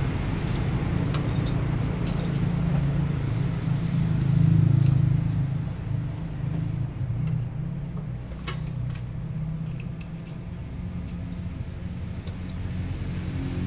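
Mitsubishi PS100 truck's diesel engine running steadily. It swells louder briefly about four to five seconds in, then settles lower, with a few light clicks in the middle.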